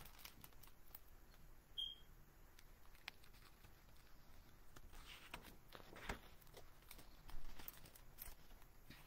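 A quiet room with faint rustles and clicks of a hardcover picture book being handled as a page is turned; the loudest rustle comes near the end. There is also a brief high squeak about two seconds in.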